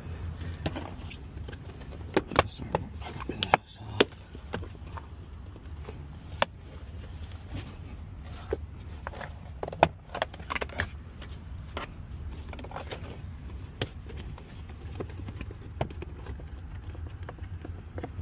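Scattered clicks and knocks of hands handling things in a car's driver footwell and along the lower dash trim panel, over a steady low hum.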